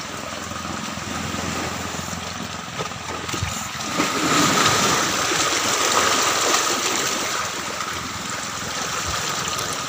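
Small sea waves lapping and washing against shoreline rocks, a steady wash that swells about four seconds in and eases again toward the end.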